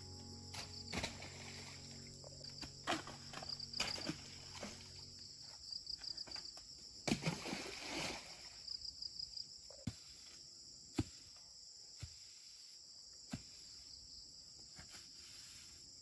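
Insects chirring steadily and high-pitched, with rustling of leaves and several sharp clicks or snaps as tree branches are handled, the loudest rustle about seven seconds in. Background music fades out over the first few seconds.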